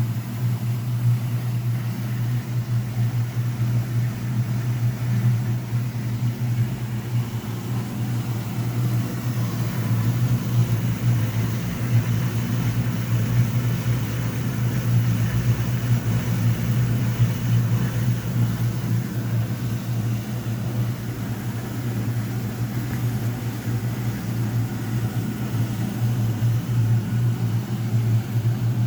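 1958 GE Mobile Maid portable dishwasher filling with water for its first power rinse: a steady rush of water with a strong low hum underneath.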